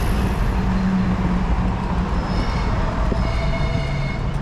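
Loud, steady rumble of city street traffic, with a high whine lasting about a second and a half near the middle.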